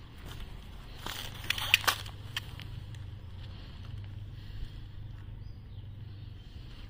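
Outdoor ambience with a steady low hum, and a short cluster of sharp clicks and rustles between about one and two and a half seconds in.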